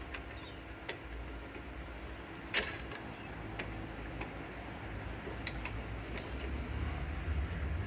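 Light, irregular metallic taps and clicks from a punch and small hammer working the pad retaining pins out of a Brembo front brake caliper. The loudest tap comes about two and a half seconds in, over a low steady rumble.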